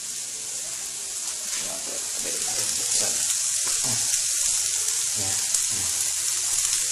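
Onion, ginger and garlic sizzling in hot oil in a frying pan, a steady hiss that grows gradually louder.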